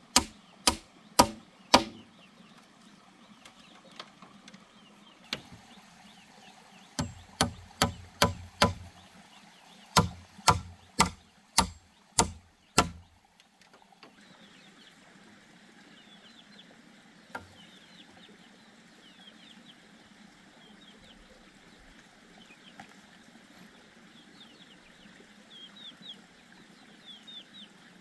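Hammer striking a wooden pole joint on a coop frame: about fifteen sharp knocks in quick runs, stopping about halfway through. Faint high chirping follows.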